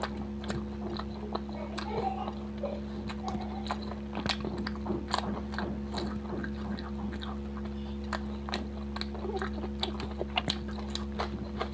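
Close-up chewing of paratha and fish curry: wet mouth clicks and smacks come irregularly throughout, over a steady low hum.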